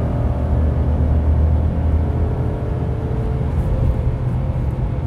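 Ford F-150's 3.5L twin-turbo EcoBoost V6 pulling at full throttle while towing a heavy trailer, heard from inside the cab along with road noise. The deep drone is strongest in the first half and eases a little after about two and a half seconds.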